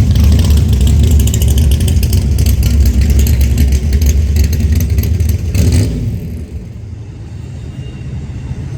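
Norfolk Southern intermodal freight train rolling past, its wheels giving a heavy rumble with rapid clattering; the sound drops suddenly about six seconds in and a quieter rumble carries on.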